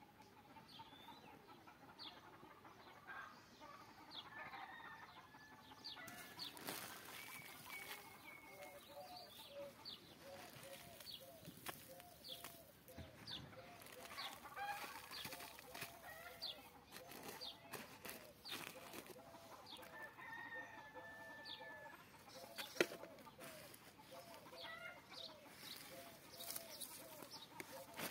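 Chickens clucking over and over, with higher bird chirps scattered through and a single sharp click late on.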